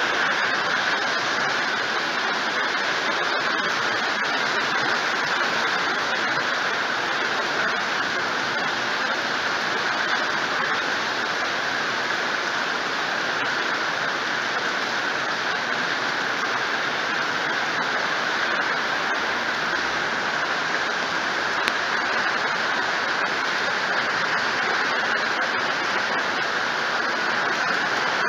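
Heavy rain pouring down onto pavement and a flooded street, a dense, even hiss that holds without a break.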